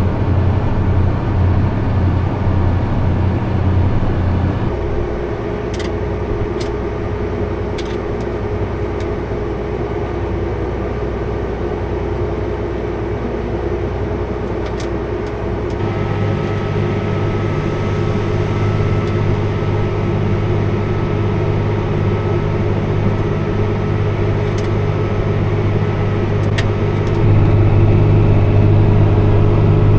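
Combine harvester running while harvesting corn: a steady drone of engine and machinery, heard from inside the cab. Its note shifts about five seconds in and again around sixteen seconds, and it gets louder near the end, with a few faint clicks along the way.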